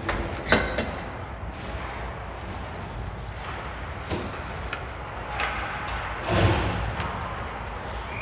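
Ice hockey rink sounds: sharp clacks of sticks and puck on the ice, the loudest about half a second in, and a longer scraping rush from skates about 6.5 s in, over a steady low arena hum.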